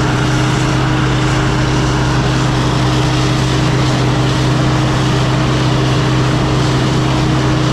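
Diesel engine of a 48-year-old Mack truck running at a steady speed, heard as a loud, even drone with a constant low hum from inside the cab.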